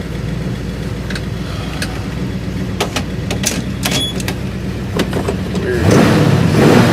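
1965 Ford Galaxie engine running on the road, with scattered clicks and rattles, then accelerating under load about six seconds in as the engine note rises and gets louder. The engine is misfiring under load when hot, which the owner suspects is a failing ignition coil.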